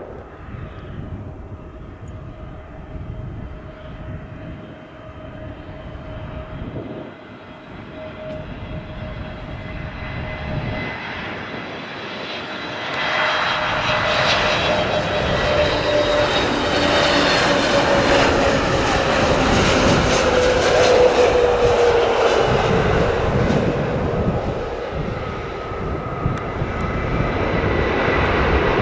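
Jet engines of an Aer Lingus Airbus airliner coming in to land. They are faint at first and swell loud about halfway through, and a steady whine slides down in pitch as the aircraft passes.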